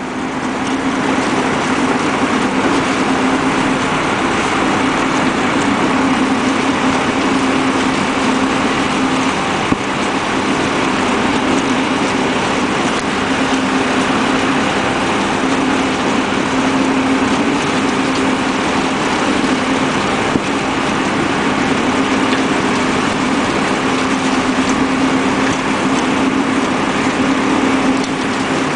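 Renault 103-54 tractor running steadily, driving a Keenan Easi-feeder 115 diet wagon, whose paddles are churning silage. The hum is continuous, with a short knock about ten seconds in and another about twenty seconds in.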